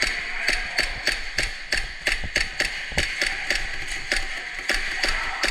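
Airsoft BBs being fired at the player's position: a steady string of sharp clicks and cracks, about four a second, as BBs strike the barricades and walls around him.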